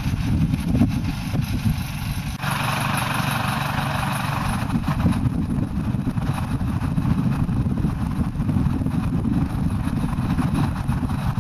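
Tractor engine idling steadily, a low rumble; about two and a half seconds in, a steady hiss suddenly joins it.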